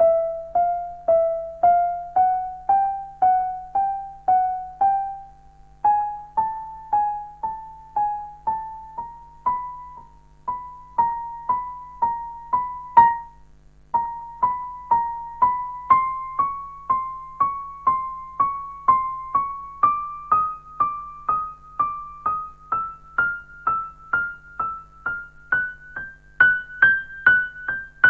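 Kurzweil KA90 digital piano played one note at a time, about two notes a second, each struck and left to fade, the pitch climbing gradually up the keyboard with small steps back and forth. A short pause comes about halfway through.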